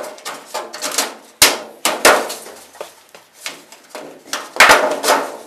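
Galvanized sheet-metal duct edges being bent over and S cleats worked onto them by hand: irregular metal clanks and rattles with a few sharp knocks, the loudest about a second and a half, two seconds and four and a half seconds in.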